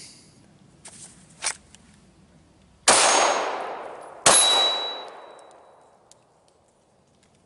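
A few light clicks of pistol handling, then two handgun shots about a second and a half apart. Each shot echoes off the surrounding woods and dies away over a second or two, and a thin high metallic ring lingers after each.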